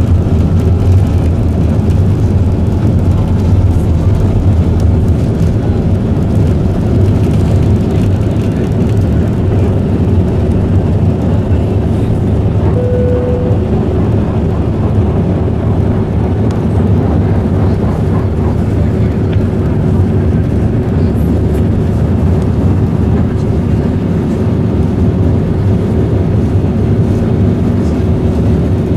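Steady, loud engine and airflow noise heard inside the cabin of an Airbus A321 in flight, with a low hum and a faint constant tone. A brief single high tone sounds once about thirteen seconds in.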